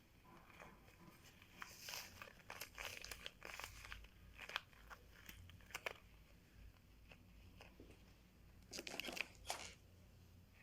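Faint rustling and crinkling as fur is stuffed into a rubber balloon, in irregular bursts of handling noise; one busy stretch comes a couple of seconds in and another cluster comes near the end.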